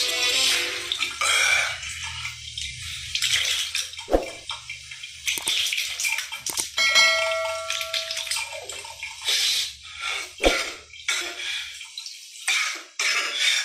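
Water splashing at a bathroom sink as a man washes his face with his hands, in irregular splashes, with two sharp knocks about four and ten seconds in.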